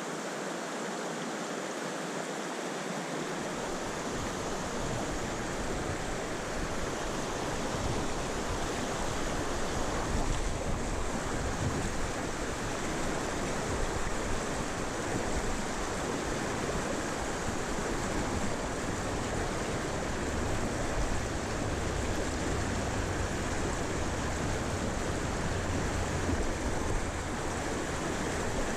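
Mountain stream running, a steady rush of water. A low rumble joins a few seconds in.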